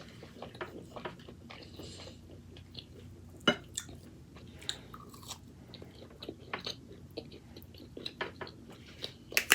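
A person chewing roasted pork close to the microphone: scattered crunches and mouth clicks, with a sharper crunch about three and a half seconds in and another near the end.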